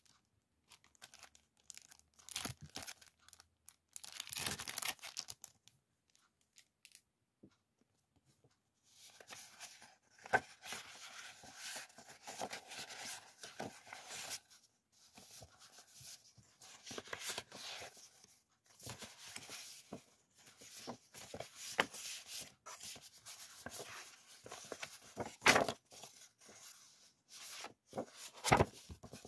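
Sheets of printed scrapbook paper and their plastic packaging rustling and crinkling as they are handled and leafed through. There is a near-quiet pause about six seconds in, and a few sharp crackles, the loudest near the end.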